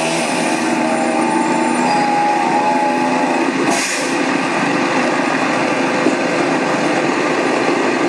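A heavy utility bucket truck's engine running loudly and steadily, with a short hiss about four seconds in.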